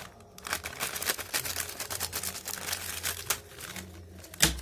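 A metallised foil snack packet crinkling and crackling in the hands as it is torn open, with a sharper, louder crack near the end.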